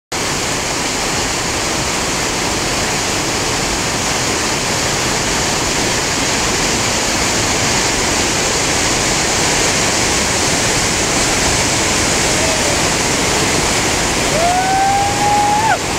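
Steady, loud rush of whitewater rapids, an even wash of churning water. Near the end a brief rising call, like a person's shout, sounds over it.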